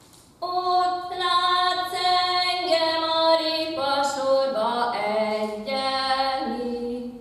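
A woman singing a Hungarian Matyó folk song unaccompanied. She sings one phrase of long held notes that steps downward toward the end.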